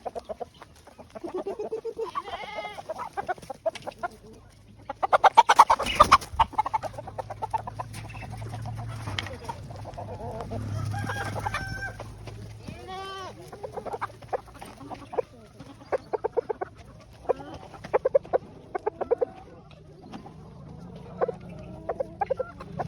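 Desi village chickens clucking again and again, with one loud, drawn-out rooster crow about five seconds in.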